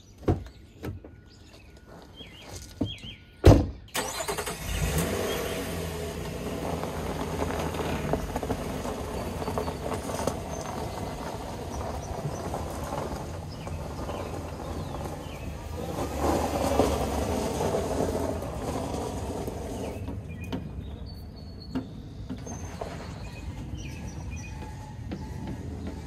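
A sharp knock about three and a half seconds in, then a car's engine and road noise running steadily; the noise swells briefly past the middle and eases toward the end.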